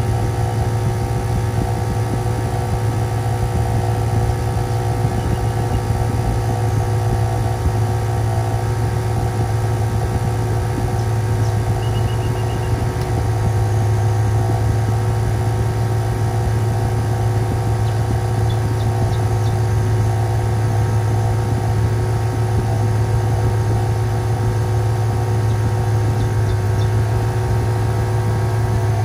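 Black Rat twin-cylinder 12 V portable air compressor running steadily under load, charging a 10-litre air tank from about 90 psi toward 125 psi, with the vehicle's engine idling underneath.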